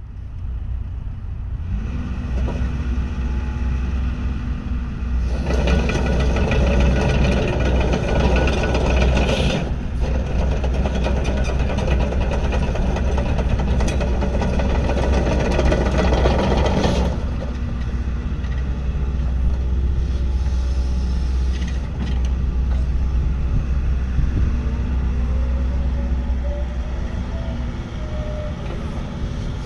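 Kato HD512-7 hydraulic excavator's diesel engine running steadily, with a low hum. It grows louder and busier for about twelve seconds in the middle, then settles back.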